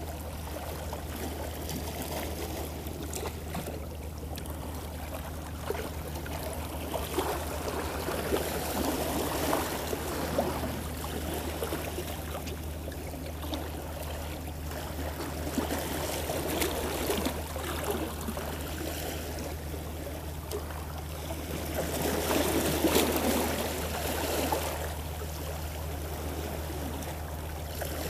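Boat engine running with a steady low hum, and water rushing and splashing against the hull, swelling louder twice.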